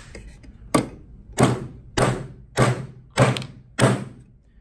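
Steel claw hammer driving a nail into a pine board: six blows a little over half a second apart, the first one lighter, the nail sinking until its head is nearly flush with the wood.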